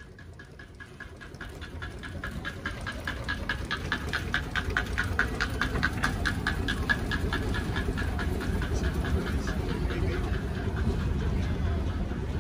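Steam traction engine driving past at walking pace: a quick, even beat of several strokes a second over a low rumble, growing louder as it comes close. The beat fades out around two-thirds of the way through while the rumble carries on.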